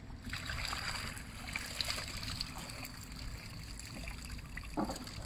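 Water splashing and dripping as a long-handled landing net is scooped through a holding pen crowded with fish and lifted out, with scattered sharp splashes and a louder splash near the end.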